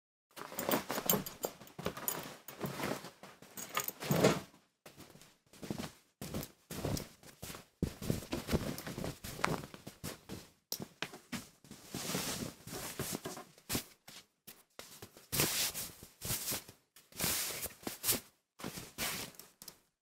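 A pullover being put on: cloth rustling and rubbing in many short bursts, with brief silences between them.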